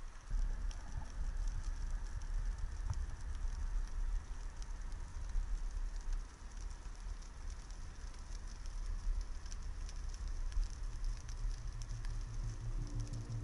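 Underwater ambience picked up by a camera in its waterproof housing: a steady low rumble of moving water with a dense, fine crackle of tiny clicks.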